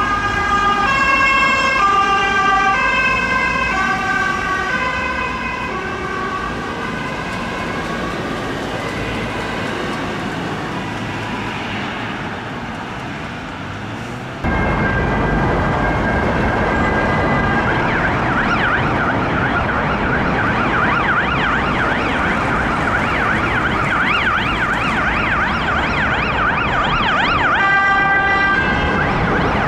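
A Volvo ambulance's siren steps between tones in a repeating pattern and fades as it moves away, over traffic noise. After a sudden cut a Volvo V90 Cross Country police car's siren sounds a fast up-and-down warble, switching back to stepped tones near the end.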